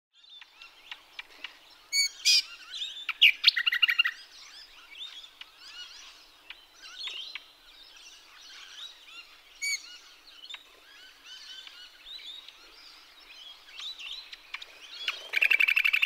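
Several songbirds chirping and calling, with many short notes throughout. There are loud sharp notes about two seconds in and again near the middle, and rapid trills about three to four seconds in and again near the end.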